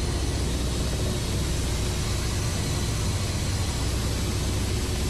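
Helicopter engine and rotor noise: a loud, steady, unbroken drone.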